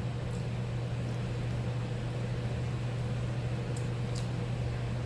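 Steady low hum with an even hiss over it, a constant room background; a few faint soft ticks near the start and toward the end.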